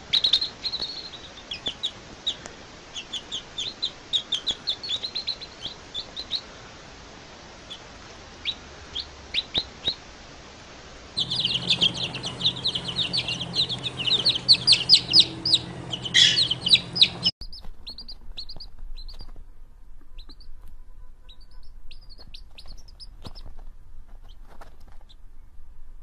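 Baby chicks peeping: many short, high chirps, sparse at first, loud and dense in the middle stretch over a low hum, then fainter toward the end.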